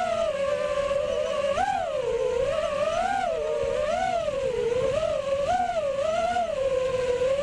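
FPV racing quadcopter's brushless motors and propellers whining, heard from the drone's own camera. The pitch wavers up and down about once a second as the throttle changes.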